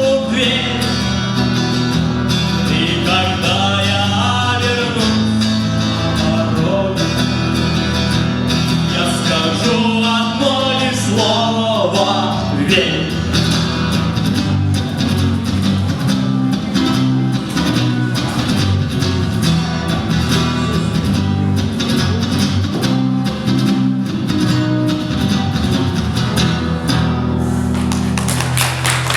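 Guitar-led song played live, with a voice singing over strummed guitar and a steady bass line through the first half, then instrumental playing. Applause starts near the end.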